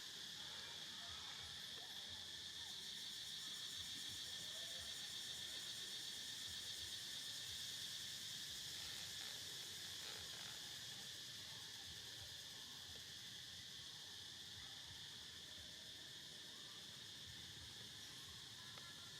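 Steady chorus of insects, a continuous high-pitched trill that stays level throughout.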